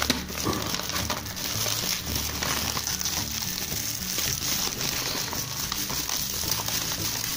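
Clear plastic stretch wrap crinkling and crackling steadily as hands pull and tear it off a large cardboard box.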